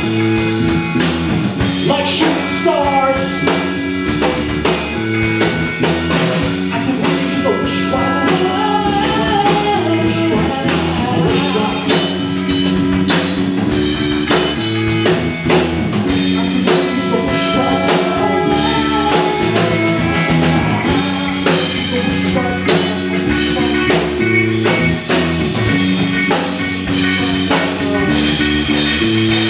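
Live rock band playing, with drum kit, electric guitar and bass guitar, amplified through PA speakers in a small room.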